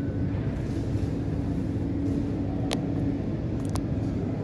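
Steady low rumble of airport apron noise from jet aircraft and ground service vehicles, with a steady hum running through it. A few short sharp clicks sound about two-thirds of the way in.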